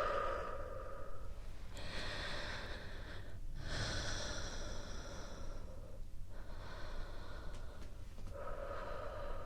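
A woman's slow, deep breaths in and out close to the microphone, one after another, each lasting about two seconds with brief gaps between them.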